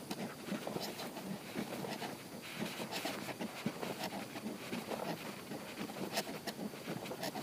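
Footsteps of someone walking along a concrete footpath, with light rustling and a few sharper clicks at irregular moments.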